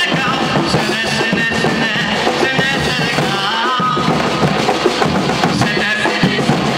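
Afro-Brazilian drum band playing a driving rhythm on large painted bass drums and stick-struck drums.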